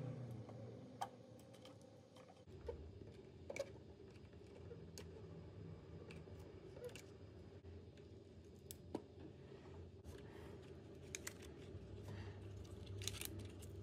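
Faint, irregular small clicks and taps from handling small tools and plastic drone parts during disassembly, over a low steady room hum.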